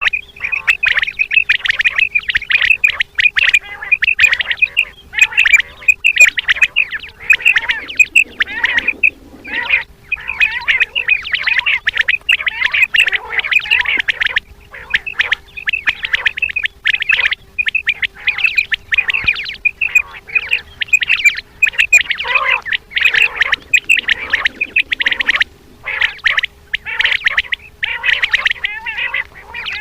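Common quail calling: a dense, rapid run of short, sharp repeated calls that goes on almost without pause, broken only by a few brief gaps, over a faint steady hum. This is the female quail call used to lure quail when hunting.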